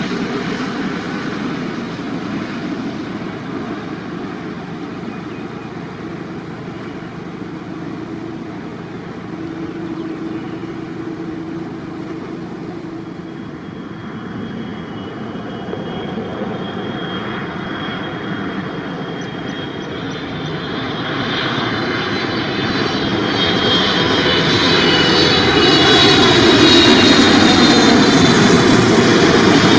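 Jet airliners on final approach, heard one after the other: an Airbus A350-900's engine noise passing and fading, then a Boeing 777-300ER's GE90 engines growing steadily louder from about twenty seconds in, with a high fan whine on top as it comes over.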